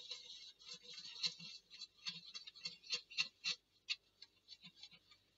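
A thin stick stirring nail polish and vegetable oil in a metal baking tray: quick, irregular clicks and scrapes of the stick against the tray, thinning out in the last second or so.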